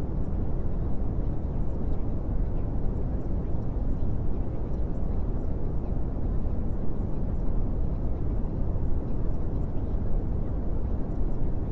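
A steady, low rumbling noise that does not change, with no distinct events standing out.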